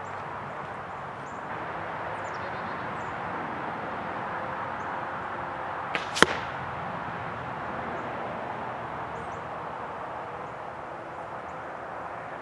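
A faint crack of the shot from far off, then about a quarter second later a sharp smack as an arrow with a 100-grain field point strikes the target, about halfway through. Steady outdoor background hiss throughout, with faint bird chirps.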